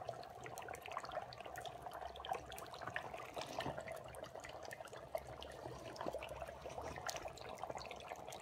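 Dry ice bubbling in water inside a plastic gym bottle: a faint, irregular patter of small pops and gurgles.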